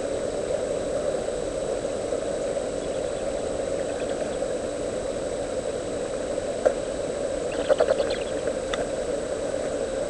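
Steady hum and hiss from the nest camera's microphone, with a thin constant high whine. A few short clicks and crackles come near the end.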